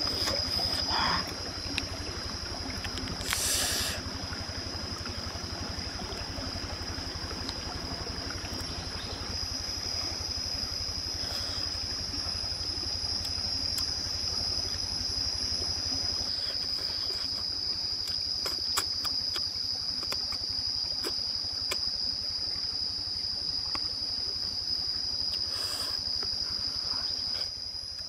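Steady high-pitched drone of insects in the forest, with faint chewing clicks from someone eating close by and two brief hisses.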